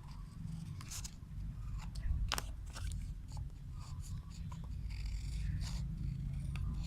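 Scissors snipping through paper in short irregular cuts, with the paper rustling and crinkling as it is handled.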